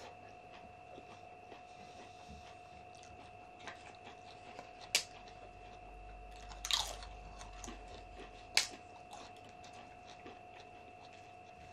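Close-miked eating: biting and chewing on pickled pork trotter, with a few sharp mouth clicks and smacks, the loudest near the middle, over a faint steady hum.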